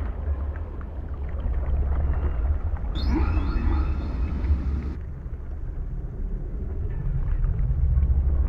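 Ambient underwater sound design: a deep, steady rumble, with a two-second burst of high, whale-like calls with sliding pitch about three seconds in.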